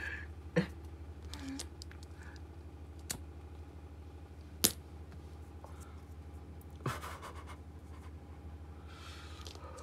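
A steady low hum with a few scattered sharp clicks and light rustles, the loudest click about four and a half seconds in.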